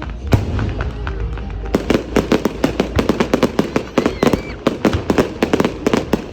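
New Year fireworks going off: a single bang near the start, then from just under two seconds in a rapid barrage of bangs and crackles, several a second. Music plays underneath.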